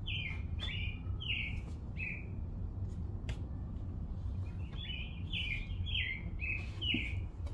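A small bird chirping repeatedly, short notes that slide down in pitch. The chirps come in two runs, one at the start and one from about halfway to the end, with a pause of a few seconds between them. A low steady rumble runs underneath.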